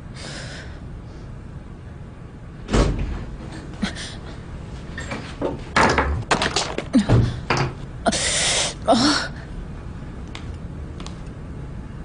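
A thump about three seconds in, then a cluster of knocks, clicks and rustling noises lasting a few seconds, with a short hissing burst about eight seconds in.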